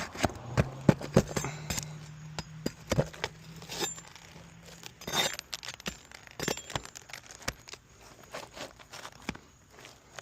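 Irregular clicks, clinks and scrapes as nails are worked loose from brittle asphalt roof shingles with a hand tool, with a low steady hum in the first few seconds.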